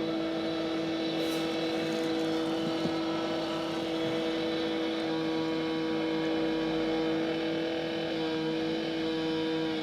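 Engine of a road-works machine running steadily at a constant speed, holding one even pitch with only a slight sag near the end.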